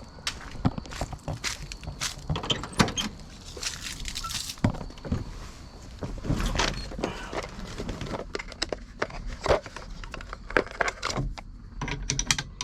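Metal sockets and tools clinking and rattling: irregular sharp clicks and knocks while sockets are handled and tried against the steering wheel nut.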